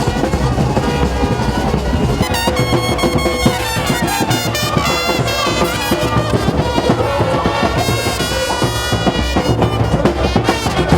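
Brass-led music with drums: horns playing a melody over a steady drum beat.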